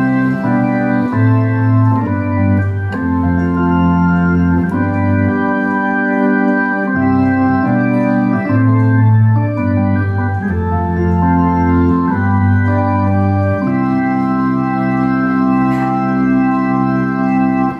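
Korg Kross 2 synthesizer played with an organ sound: held chords changing every second or two over a low bass note, stopping at the very end.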